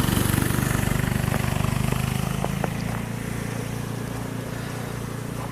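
Snowblower's small engine running steadily, getting somewhat quieter about halfway through.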